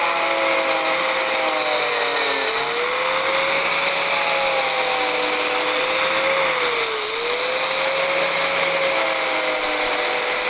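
A handheld rotary power cutting tool running at high speed, cutting through a front body panel of a 2020 Land Rover Defender to make room for a winch. Its steady whine sags briefly in pitch twice as the tool bites into the panel under load.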